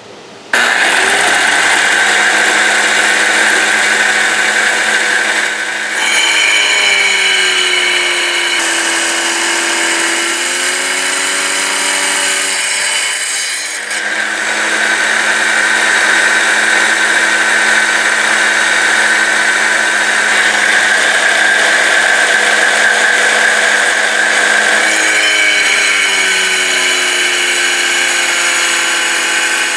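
Water-cooled diamond-blade saw switching on about half a second in and running steadily while slicing a tremolite rock. Its hum wavers in pitch, and a higher grinding whine comes and goes as the stone is pushed against the blade.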